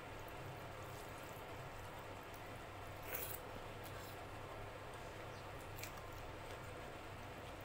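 Fingers squishing and mixing rice with dal and mashed vegetables on a plate: faint soft wet squishes with a couple of sharper little clicks, about three seconds in and near six seconds, over a steady low hum.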